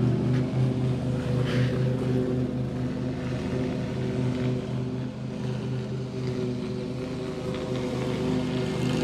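A motor running steadily, a low, even drone.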